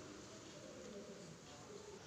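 Near silence: faint room tone with only weak, indistinct background sound.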